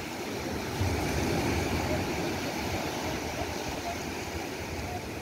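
Surf washing and breaking on a sandy beach, a steady rushing wash with a low rumble that swells and eases, and wind buffeting the microphone.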